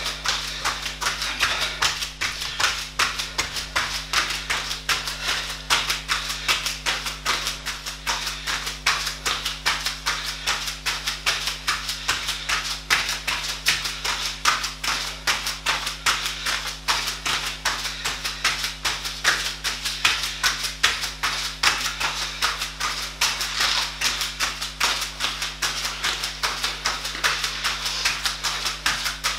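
Bare feet striking a foam training mat in a fast, even run of light taps as the feet switch back and forth in a quick step-switch drill.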